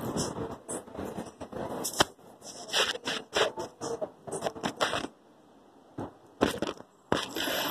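Handling noise on a recording phone: irregular scraping and rustling with sharp clicks, dropping out briefly about five seconds in.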